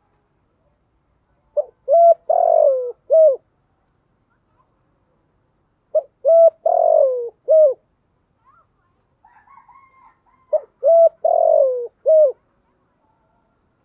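Spotted dove cooing: three identical phrases about four and a half seconds apart. Each is two short coos, a longer falling burry coo and a final short coo.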